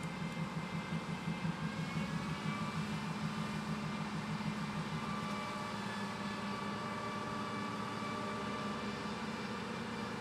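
A 5-axis CNC woodworking machining center running: a steady machine hum with whining tones. It throbs quickly for the first few seconds, then runs evenly.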